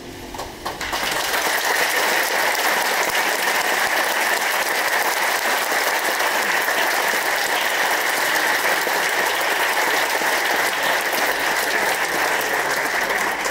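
Audience applauding after a live piece ends, the clapping breaking out about a second in and holding steady.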